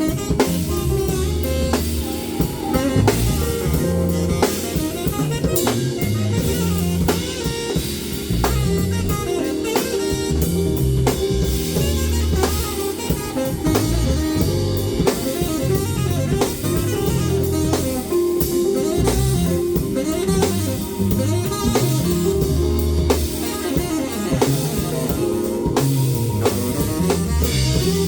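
A band playing a jazz-blues groove, with drum kit and guitar over a bass line that steps from note to note.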